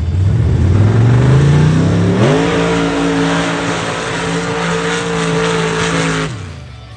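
A loud vehicle engine revving up over about two seconds, held at steady high revs for about four seconds, then cutting off sharply near the end.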